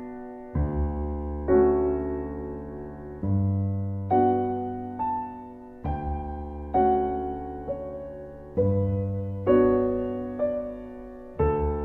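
Slow, gentle solo piano music: chords struck about once a second, each left to ring and fade, over deep bass notes every few seconds.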